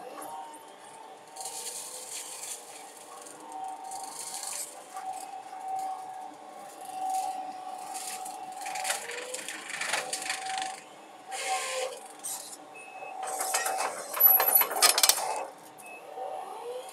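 Excavator-mounted hydraulic brush mower running with a steady whine, shredding brush and saplings in repeated bursts of cutting noise. The loudest burst comes about two-thirds of the way through.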